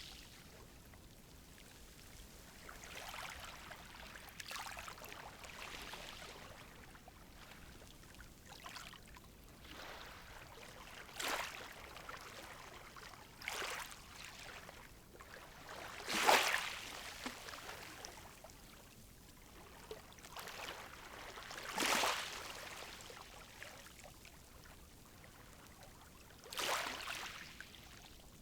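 Gentle sea waves breaking and washing up the shore, a soft hiss of surf rising in separate swells every few seconds, the strongest two about halfway through.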